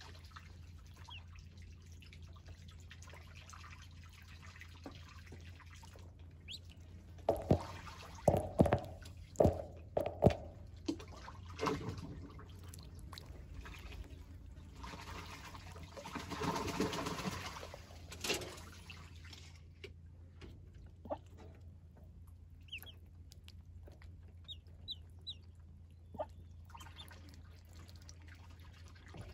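Ducklings paddling and splashing in a shallow metal tub of water, with a cluster of sharp splashes and knocks about a quarter of the way in and a longer stretch of splashing around the middle. A few short, high duckling peeps come near the end, over a steady low hum.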